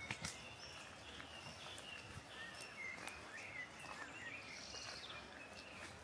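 Faint chorus of New Zealand forest birds: many short chirping and warbling notes from several birds, with a few sharp clicks near the start.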